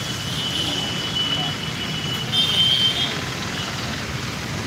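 Street traffic noise, with a thin, steady high-pitched tone that sounds for about two seconds, breaks briefly, and returns louder for under a second about two and a half seconds in.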